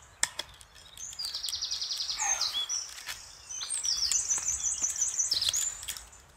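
A songbird singing: a fast trill of high repeated notes lasting about a second and a half, then, after a short pause, a longer varied phrase of rapid high notes. A single sharp click sounds near the start, before the song.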